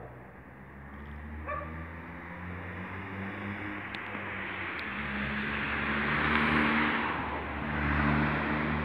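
Street traffic: a car driving past close by, its tyre and engine noise swelling to a peak about six to eight seconds in, over a steady low engine hum.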